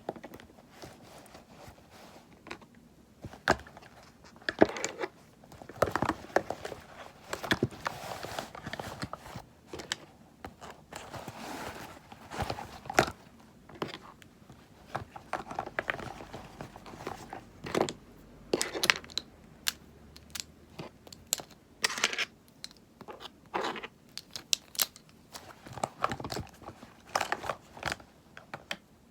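Cosmetics and their containers handled close to the microphone for ASMR: irregular taps, clicks and short crinkling and scraping sounds.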